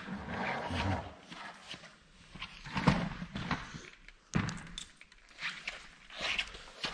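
Footsteps on a concrete floor, with scattered knocks and rustles of handling.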